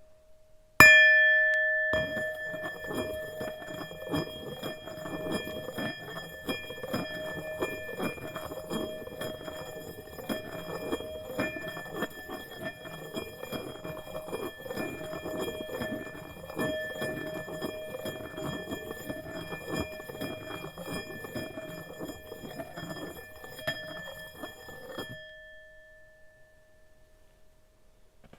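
Tibetan singing bowl struck once about a second in, then played around the rim with the mallet. Its ringing tone is sustained with a steady grainy scraping until about 25 seconds in, when the rubbing stops and the tone rings out.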